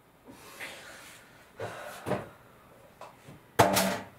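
Kitchen handling sounds: a cupboard-type door opened and shut while a small cup is taken out. The sounds are a rustle, then a few knocks and clicks, with the loudest clatter just before the end.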